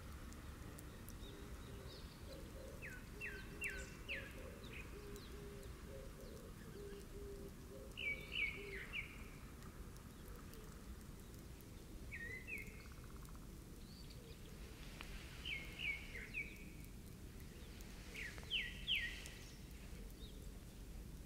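A songbird singing short phrases of two to four quick, downward-sliding notes, repeated about every four seconds. A steady outdoor background hiss runs under it, with a fainter series of low notes in the first half.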